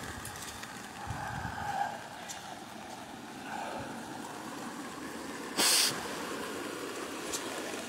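Swollen stream in flood, its muddy water rushing steadily, with one brief loud rustle a little past the middle.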